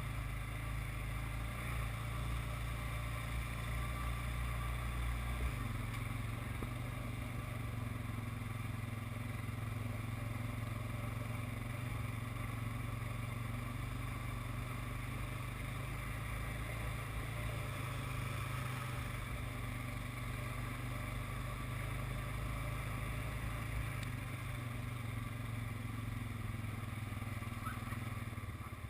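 ATV engine running steadily as the quad rides along a dirt trail at an even pace; its deepest rumble eases off about five seconds in.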